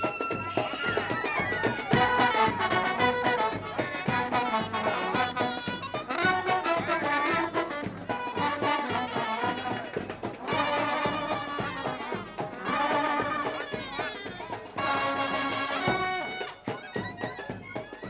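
Traditional Indian wedding music: a reedy wind instrument plays the melody over percussion, fading away near the end.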